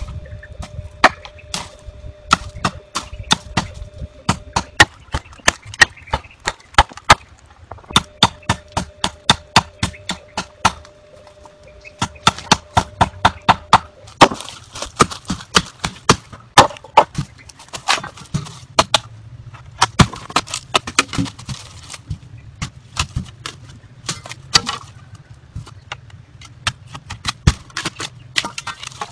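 A machete chopping into bamboo canes: sharp woody strikes, several a second in runs with short pauses, with a rustling hiss through the middle stretch.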